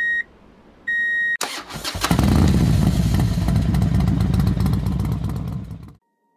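An electronic beep, then an engine cranking and catching about a second and a half in, running for about four seconds before the sound cuts off abruptly.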